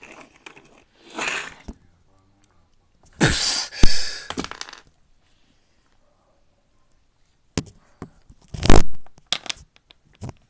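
Rustling, scraping and knocking handling noises in a few separate bursts, the loudest about three seconds in and again near eight seconds, as toy figures and the phone are moved about on a wooden floor.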